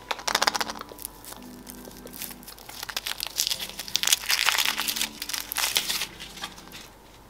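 Foil wrapper of a Chupa Chups chocolate egg crinkling as it is peeled off by hand. It comes in two spells: a short one at the start and a longer, denser one from about three to six seconds in.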